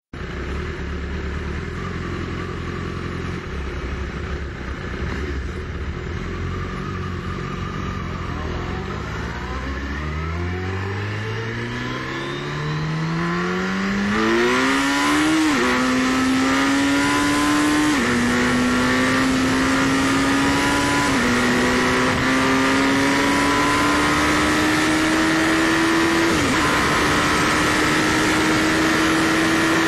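Turbocharged Suzuki Hayabusa's inline-four engine, first running low and steady, then accelerating hard with its revs climbing. It shifts up four times, each a sudden drop in pitch followed by another steady climb.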